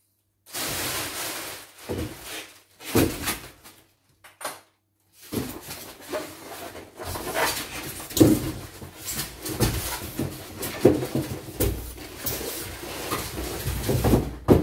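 Styrofoam packing blocks rubbing and scraping against each other and against a cardboard box as they are lifted and pushed in by hand, in irregular bursts with a short pause about four seconds in.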